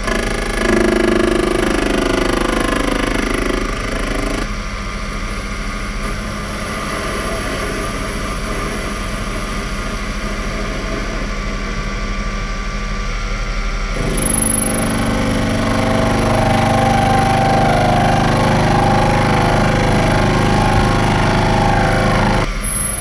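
Proxxon PD 250/e mini lathe running, its three-jaw chuck spinning while the tool turns a short piece of steel bar. The running sound changes abruptly about four seconds in and again midway, and drops suddenly just before the end.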